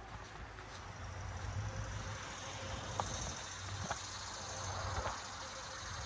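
Wind buffeting the microphone as a steady low rumble, with a few faint ticks.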